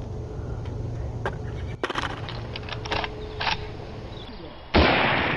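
A single loud gunshot sound effect from a sniper rifle, hitting suddenly near the end and dying away over about two seconds. Before it there is only a low hum with a few faint clicks.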